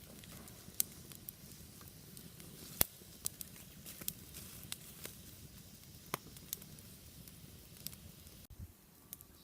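Wood fire crackling: scattered sharp pops, a few a second at most, over a steady low rumble. The sound changes abruptly near the end.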